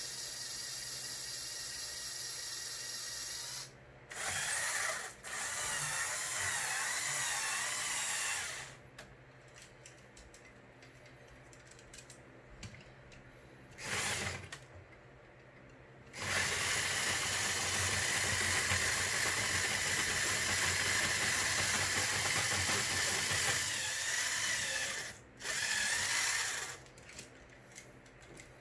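Small electric motors driving the plastic gearing of a motorized Lego Technic excavator model, whirring in runs of a few seconds that start and stop abruptly. The longest run lasts about nine seconds in the second half.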